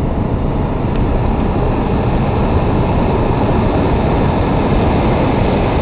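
Hot-air balloon propane burner firing: a loud, steady rushing blast that starts abruptly with a click and holds at an even level.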